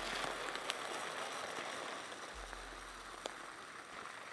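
Uncooked rice pouring from a plastic bag into a glass storage jar: a steady hiss of grains falling onto the glass and onto each other, slowly getting quieter, with a couple of faint ticks.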